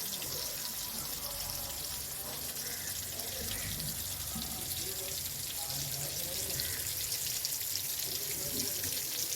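Marinated tuna pieces frying in hot coconut oil: a steady high sizzling hiss with fine crackles.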